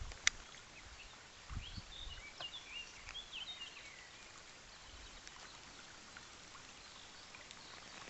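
Small birds chirping and singing, busiest in the first half, over the faint steady rush of a shallow, stony stream. A couple of soft thumps come near the start.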